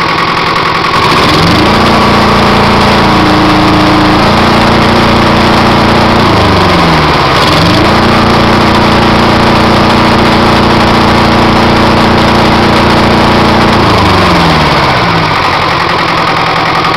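Perkins 402C two-cylinder diesel engine running after a valve repair, healthy with no issues. It is throttled up from idle about a second and a half in and holds high revs, drops briefly around seven seconds, is revved up again, then settles back toward idle near the end.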